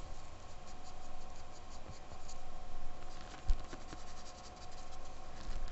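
A red pastel stick scratching over drawing paper in many short strokes as colour is layered on. There is a soft bump about three and a half seconds in.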